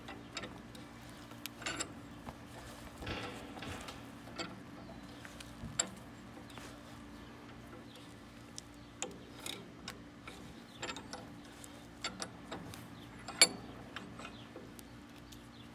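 Bench vise squeezing a slime-filled aluminium energy can: scattered small clicks and creaks, with one sharp louder click about thirteen seconds in, over a steady low hum.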